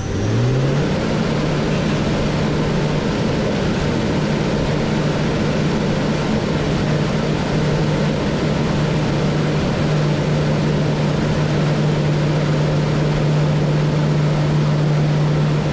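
CNC lathe spindle spinning up, its hum rising in pitch over about the first second, then running at steady speed with a strong steady hum and an even hiss while a carbide boring bar cuts the bore of a brass part.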